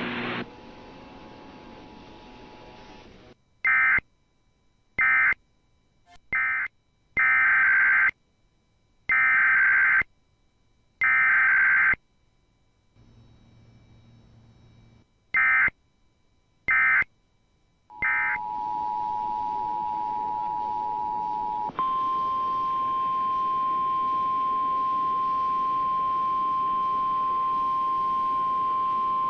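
Emergency Alert System tones. A quieter two-tone attention signal comes first, then groups of short, screechy digital data bursts (SAME codes). The two-tone attention signal sounds again for about four seconds, followed by a long, steady single-pitch alarm tone typical of the NOAA Weather Radio 1050 Hz warning alarm.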